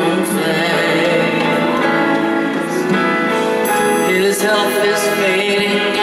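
Live band music with singing, a pop ballad performed in concert.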